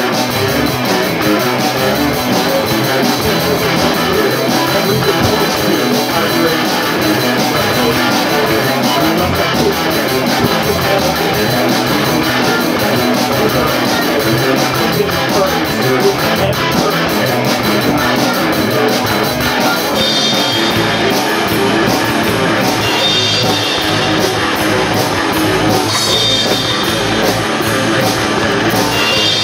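Live rock band playing: two electric guitars, electric bass and drum kit together, loud and dense.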